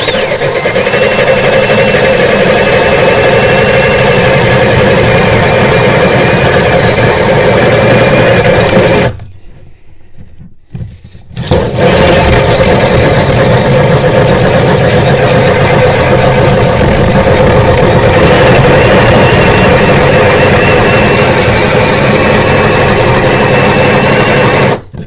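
Cordless drill driving a Cavity Master hole saw through a chipboard floor: a steady motor whine with the grind of the cutting teeth as the saw cuts down into the rebate. It stops for about two seconds about nine seconds in, then runs on until just before the end, when the hole is finished.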